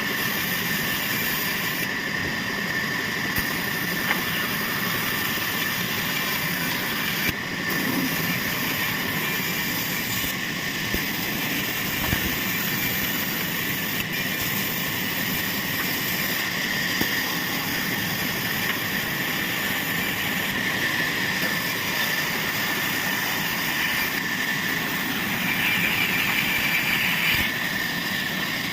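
Sawmill saw machinery running steadily: a continuous mechanical noise with a steady high whine, a few short knocks, and a slightly louder, harsher stretch near the end.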